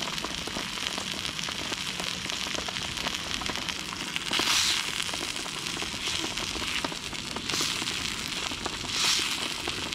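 Venison loin and garlic slices searing in hot oil in an iron frying pan, a steady sizzle full of crackling spatter. The sizzle surges louder three times as the meat and garlic are pushed around the pan.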